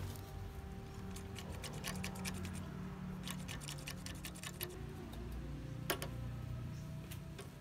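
Scattered light clicks and taps, a quick run of them about three seconds in and a sharper single one near six seconds, over a low steady hum.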